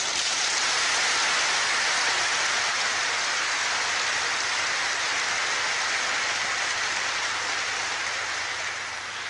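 Large audience in a hall applauding: dense, even clapping that starts suddenly and holds steady, then dies away near the end.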